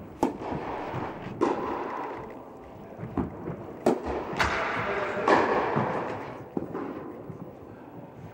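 Tennis ball struck by racquets in a serve and rally, with sharp hits and bounces every second or so, each echoing in a large indoor tennis hall.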